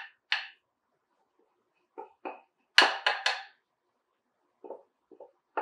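Wooden spoon knocking and scraping against a bowl while sticky sourdough leaven is worked out of it into a mixing bowl: a handful of short, separate knocks, with a louder run of three about three seconds in.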